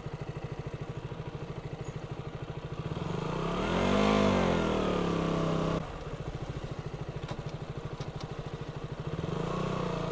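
KTM Duke 200's single-cylinder engine running at low revs with an even chug, then revving up and back down in pitch about three to six seconds in before the throttle is shut sharply, and settling back to a low steady chug.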